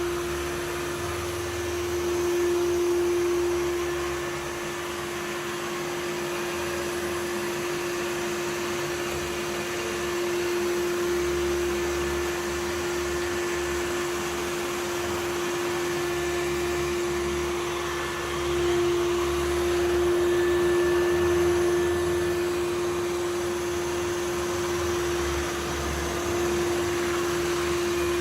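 Samsung VR20M7070WD robot vacuum running, a steady hum over an airy suction hiss that swells and eases a little in loudness as it moves.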